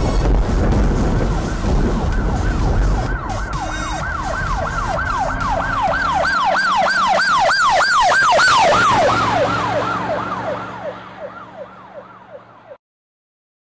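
Emergency-vehicle siren sound effect in a fast yelp, rising and falling about three times a second, over a low rumble. It grows louder, then drops in pitch and fades away as it passes, cutting off to silence near the end.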